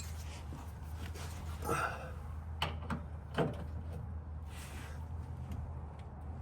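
Hand wrench and socket working on a truck's rear shock top mount: a few scattered light metal knocks and scrapes over a steady low hum.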